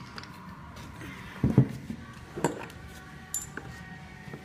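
Rubber bumper plates being handled on an Olympic barbell's sleeve: a dull knock about a second and a half in, another about a second later, then a few light metallic clinks from the sleeve and spring clip collar.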